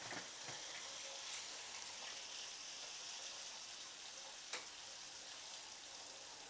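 Steady sizzle of steak and floured cod frying in hot fat, with one sharp click about four and a half seconds in.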